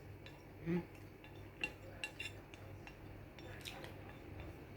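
Eating utensils, a spoon among them, clinking and scraping faintly against a dish as pancit canton noodles are scooped up, with a few sharper ticks about a second and a half in and again near the end. A short hum from the eater about a second in, over a faint low hum.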